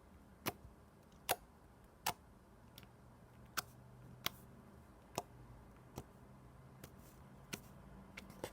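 Golden holographic slime being pressed and stretched by hand, making sharp clicks roughly once a second, with two close together near the end.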